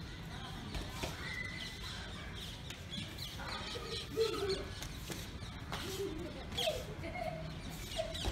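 Assorted birds calling: short high chirps scattered throughout and a few lower, bending calls, over a steady low rumble.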